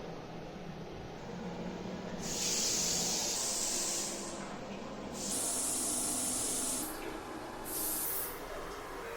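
Three bursts of hissing spray, the first two about two seconds long and the last under a second, over a steady low hum.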